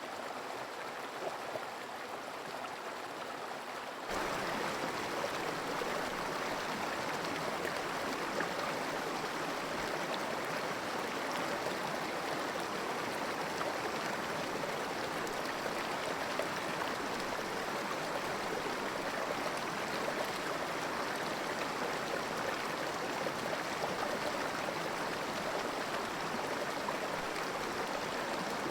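Flowing water of a creek: a steady rush with no rhythm, which becomes clearly louder about four seconds in.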